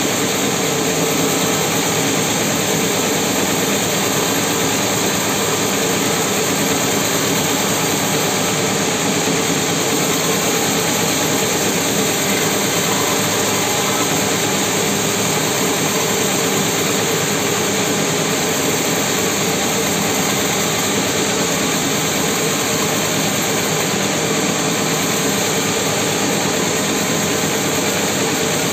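Band sawmill running steadily as its blade saws through a mahogany log, a loud, unchanging mechanical noise.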